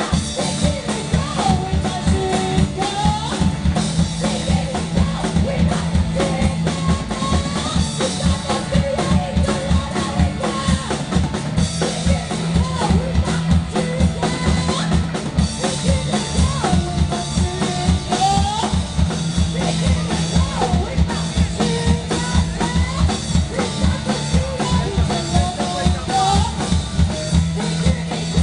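Live rock band playing at full volume: a drum kit keeps a steady, driving beat of kick and snare under a repeating bass line, with pitched instruments wavering and bending above.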